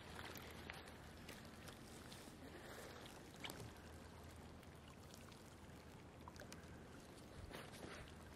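Near silence: faint lakeshore ambience, soft water trickling and lapping at the ice edge, with a few faint ticks.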